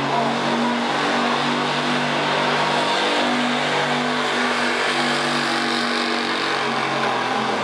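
Gasoline-engine pickup truck pulling a weight-transfer sled under heavy load, its engine running loud and fairly steady at high revs.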